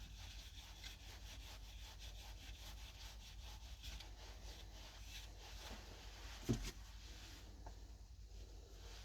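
Faint rubbing and scraping on wood, in irregular strokes during the first five seconds, with a single short knock about six and a half seconds in.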